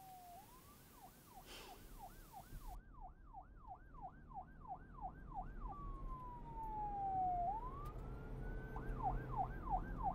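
Police car siren growing louder as it approaches. A fast yelp sweeps up and down about three times a second, changes about halfway through to a slow falling wail, then rises quickly back into the yelp.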